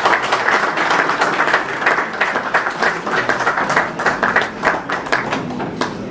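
An audience applauding, many hands clapping together, thinning out near the end.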